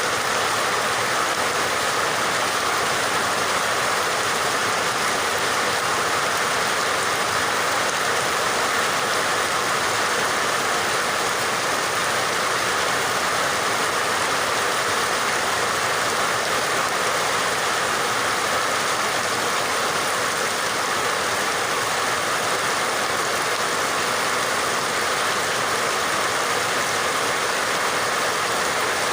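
Steady, unbroken rain with an even hiss and no separate drops or thunder standing out.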